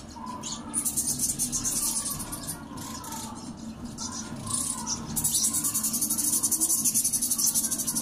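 Budgerigars chirping and chattering in rapid, high-pitched trills, in two stretches, the louder one in the second half.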